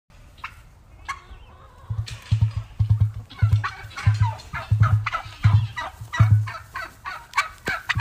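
Emu drumming: a run of deep, low pulses, about eight of them, starting about two seconds in and stopping shortly before the end. Short dry crackles and rustles sound over the top throughout.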